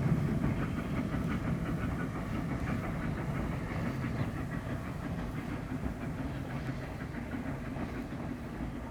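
A railway train running on jointed track, its wheels clicking steadily over the rail joints with a low rumble underneath, slowly fading as it draws away.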